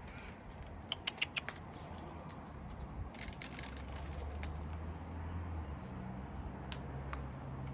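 Scattered sharp clicks and taps from cockatoos feeding, with a quick cluster about a second in, over faint high chirps of small birds and a low steady hum.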